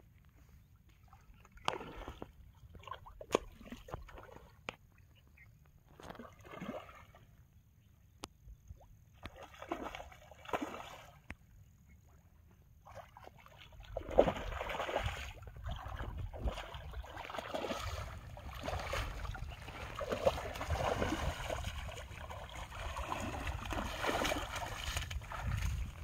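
Water sloshing in short bursts around a wading angler, then, about halfway through, a sudden splash and continuous thrashing and splashing as a large hooked fish fights at the surface and is drawn in.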